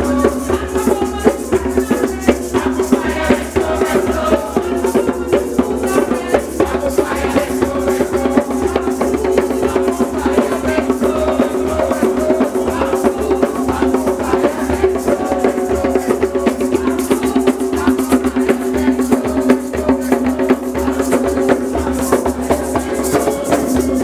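Live Guyanese Kwe Kwe music: drums and rattles keep a fast, steady beat, with voices singing over it, clearest in the first several seconds.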